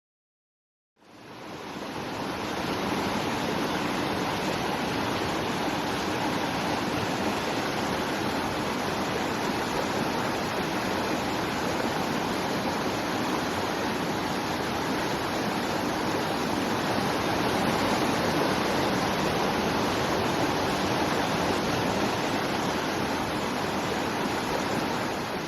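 Waterfall: a steady, even rush of falling water that fades in about a second in, after a moment of silence.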